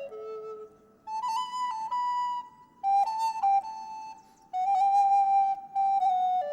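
Flute playing a slow melody of held notes separated by short breaks, the instrumental opening of a gospel song.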